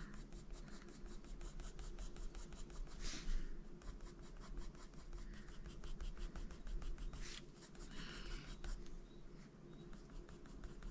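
Faber-Castell Polychromos coloured pencil scratching over paper in short shading strokes, faint, with a few louder strokes.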